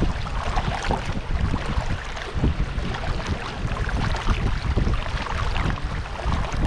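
Dragon boat paddles splashing and pulling through the water as the crew strokes, with wind buffeting the microphone.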